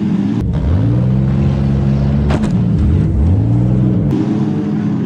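Demolition derby car engines revving, heard close up from about half a second in, the revs dropping and climbing again twice, with one sharp crack about two and a half seconds in.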